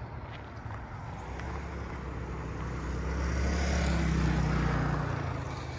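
A motor vehicle driving past: its engine hum and road noise rise from about two seconds in, are loudest around four seconds, then drop away quickly just after five seconds.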